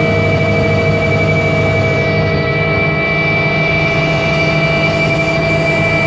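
Helicopter in cruise flight heard from inside the cockpit: the turbine engines and rotor make a steady high whine over a low drone.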